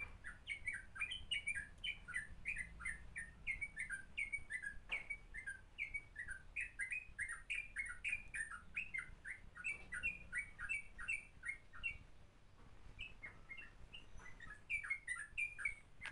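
Small birds chirping faintly in a quick, continuous run of short, falling chirps, with a brief lull about twelve seconds in.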